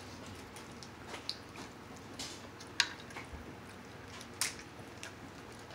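King crab legs being cracked and picked apart by hand, with chewing: scattered light clicks and crackles, with two sharper snaps about three seconds and four and a half seconds in.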